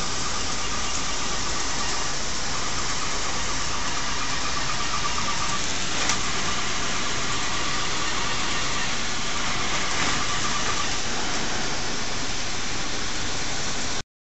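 HEPA air scrubber blower running steadily, pushing air through inflated plastic ducting out of a window to hold the work area under negative pressure; a faint high whine comes and goes over the rushing air. It stops abruptly near the end.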